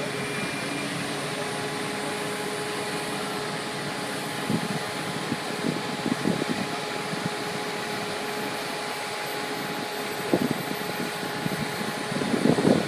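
Truck-mounted concrete pump running steadily: a constant mechanical hum and rush with a few dull knocks about halfway through and again near the end.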